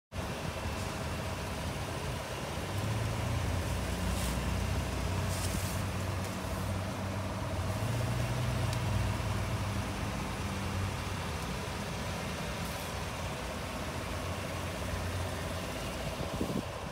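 A 2016 GMC Sierra 1500 Denali's V8 engine idling with a low, steady hum, heard close up at the front grille.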